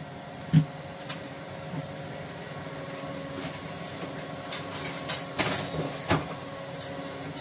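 A plastic cutting board being washed in a stainless-steel kitchen sink: a few short knocks and scrubbing sounds, with a cluster about five seconds in, over a steady background hum.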